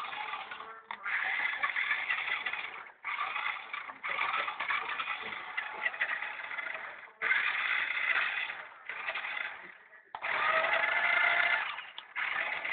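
Toy RC car's small electric motor whirring in repeated stop-start bursts, each lasting about one to three seconds with short gaps between.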